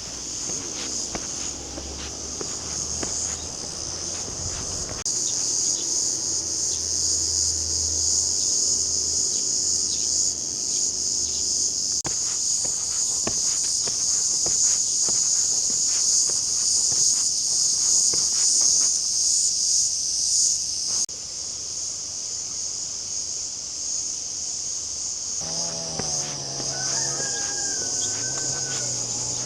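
Steady, loud chorus of insects shrilling in a high band, with footsteps on a path. Near the end a low, drawn-out farm-animal call lasts about three seconds.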